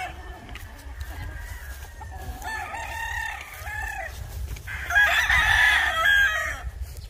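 Several gamecocks crowing one after another, some faint and further off, with a louder, nearer crow about five seconds in.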